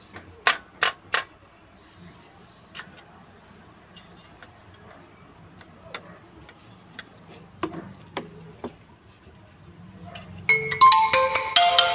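Three sharp clicks about half a second in as the homemade wooden slingshot crossbow is handled, followed by fainter scattered clicks and taps. Near the end a marimba-style ringtone tune starts and becomes the loudest sound.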